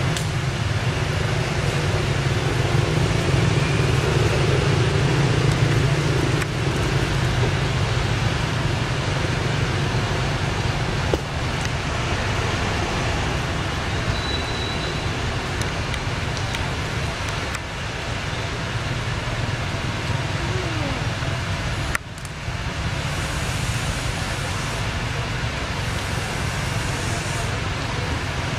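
Steady outdoor background noise: a low rumble with hiss throughout, dipping briefly about 22 seconds in.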